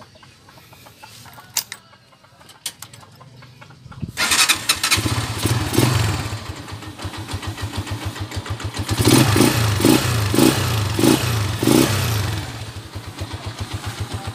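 A Honda single-cylinder four-stroke motorcycle engine starting about four seconds in, after a few clicks, then running at idle with several quick blips of the throttle.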